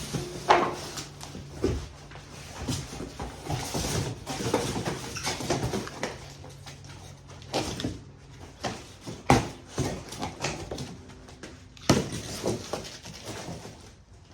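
A large cardboard shipping box being cut open and its flaps and packing handled: irregular scraping and rustling with a few sharp knocks, the loudest about half a second, nine seconds and twelve seconds in.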